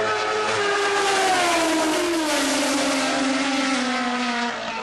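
Drag racing car's engine at full throttle passing by on the strip, its note gliding steadily lower as it runs on toward the finish, easing off near the end.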